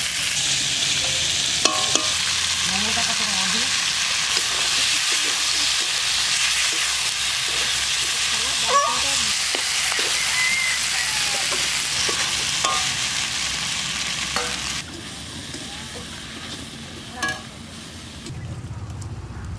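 Spiced shelled oysters frying in a metal wok, a steady sizzle, while a metal spatula stirs and scrapes against the pan with occasional clinks. The sizzle cuts off sharply about three-quarters of the way through, leaving fainter spatula scrapes.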